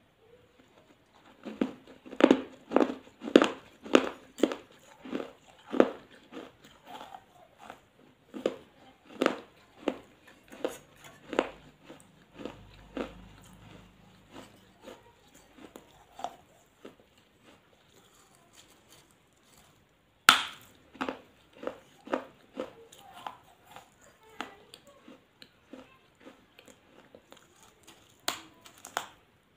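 A person eating: mouth-close chewing and biting, a run of short sharp chews about two or three a second that thins out, then a sharper bite about twenty seconds in and more chewing.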